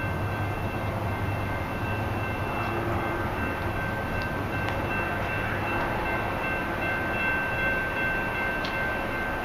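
Approaching diesel-hauled freight train, still some distance off: a steady low rumble with several thin high tones held over it.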